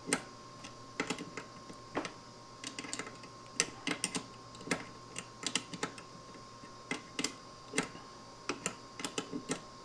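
Irregular light metallic clicks and taps as a nut is worked down a carriage bolt with a wrench to draw the bolt's head into the wood.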